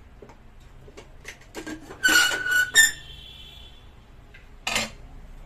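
A pressure cooker lid being worked off: a few light clicks, then a loud squeal of the lid scraping against the cooker's rim about two seconds in, a second short squeak with a brief metallic ring, and a sharp knock a little before the end.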